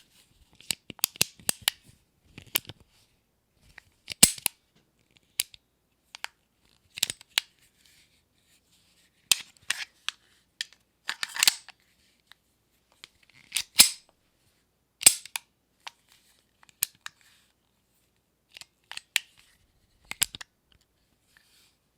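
Semi-automatic handgun being handled: magazine loading, the slide racked and the trigger dry-fired, heard as sharp metallic clicks and clacks in small clusters with pauses between them, a few longer sliding clacks among them.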